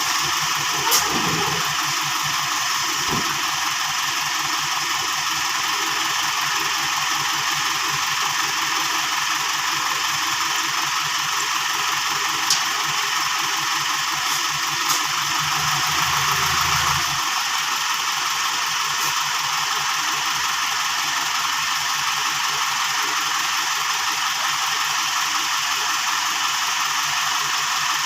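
A vehicle engine running steadily at low revs under a constant hiss. Its low rumble swells briefly and then drops away about two-thirds of the way through, with a few light clicks.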